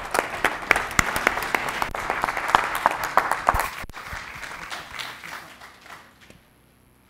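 Congregation applauding. The clapping is dense at first, then thins out and dies away about six seconds in.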